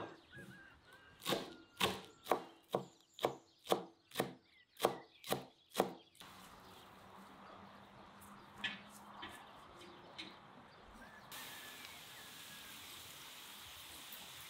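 Knife chopping fresh greens on a plastic cutting board: about ten sharp knocks, roughly two a second, stopping about six seconds in. From about eleven seconds the steady sizzle of diced potatoes frying in a wide pan follows.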